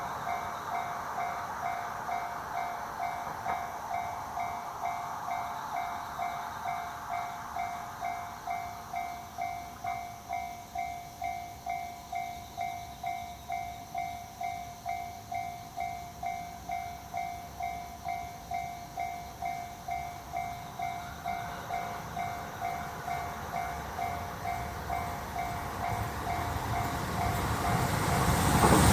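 Railroad crossing warning bell ringing as a steady, rapidly repeating electronic ding. Over the last several seconds a train's approaching rumble rises under it and grows louder toward the end.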